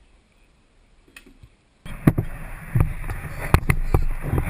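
Faint quiet with a few small clicks, then, about two seconds in, the sudden loud splashing of a kayak paddle in the water, with repeated sharp knocks and a low rumble.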